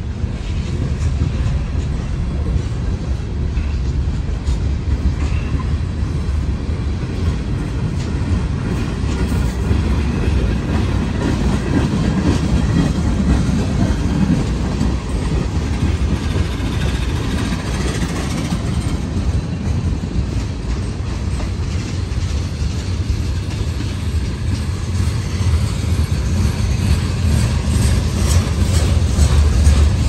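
Freight cars of a Norfolk Southern manifest train rolling past close by, covered hoppers and then tank cars. Their steel wheels on the rails make a steady rumble that grows a little louder near the end.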